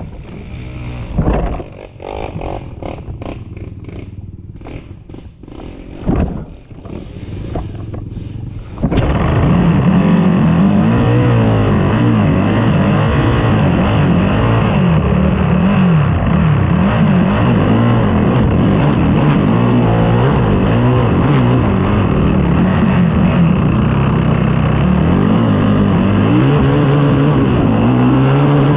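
Race ATV engine running over rough ground. For the first nine seconds it is quieter, with scattered clattering knocks. Then it turns loud and close, revving up and down without a break.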